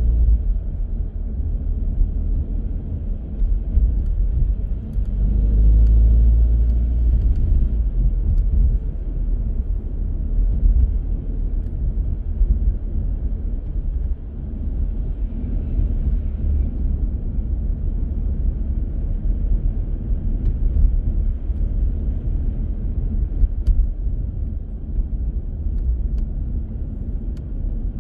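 A car being driven through city streets: a steady low rumble of road and engine noise, rising and falling a little, with a few faint ticks.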